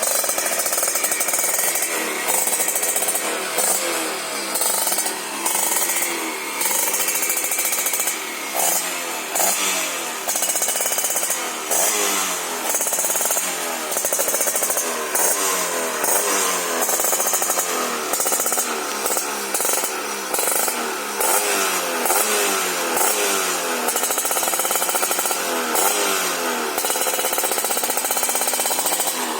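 Kawasaki Ninja engine in a Yamaha RX King motorcycle, revved again and again through its aftermarket exhaust, the pitch rising and falling with each throttle blip and dropping briefly between revs.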